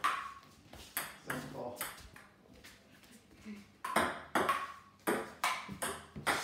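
A table tennis rally: sharp clicks of a ping-pong ball struck by paddles and bouncing on a wooden dining table. There are about four hits in the first two seconds, a pause of about two seconds, then a quicker run of five or so.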